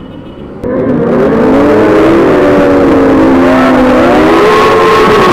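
Motorcycle engine revved hard and held at high revs during a burnout, its pitch wavering up and down. It starts abruptly under a second in, after quieter riding noise.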